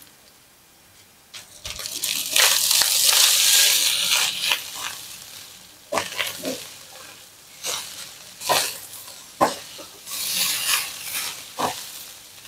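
Cold rice being stir-fried in a wok: it sizzles in loud swells as it is tossed, about two seconds in and again near the end, while spatulas scrape and knock against the pan several times.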